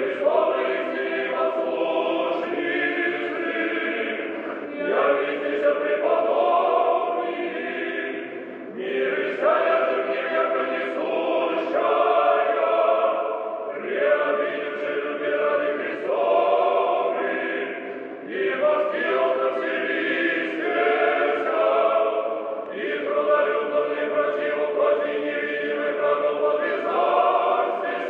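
Church choir singing Orthodox liturgical chant, unaccompanied, in phrases of about four to five seconds with short breaks between them.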